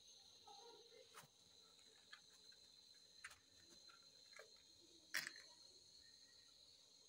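Near silence: faint room tone with a steady high-pitched tone and a few soft clicks, the loudest a little after five seconds in.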